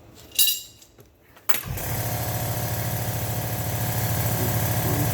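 Pneumatic wrench running steadily for about four seconds on a shock absorber bolt, starting about a second and a half in, after a short loud burst about half a second in. The bolt only spins free without coming out, because the nut behind it turns with it.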